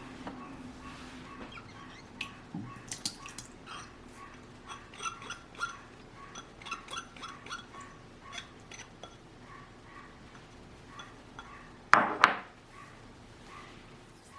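Kitchen utensil clinking against a glass or ceramic dish in a run of light, irregular clinks, then two loud knocks in quick succession about twelve seconds in.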